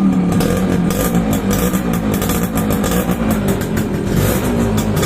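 Suzuki X4 motorcycle's single-cylinder four-stroke engine running steadily, its pitch wavering slightly, heard at the exhaust during a sound check of the freshly restored bike.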